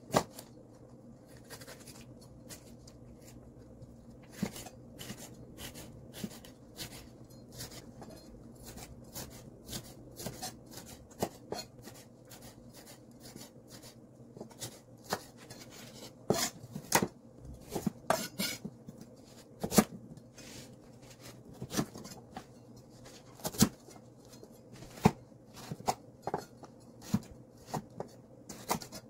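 Chef's knife slicing a red bell pepper and then dicing a carrot on a wooden cutting board: irregular taps of the blade on the board, sparse at first and then several a second, with some louder chops in the second half.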